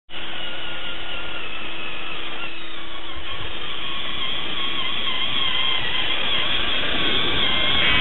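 Radio-controlled toy John Deere bulldozer running, a steady mechanical whirr with high whining tones that waver in pitch. It cuts in abruptly, and a steady low hum drops out about halfway.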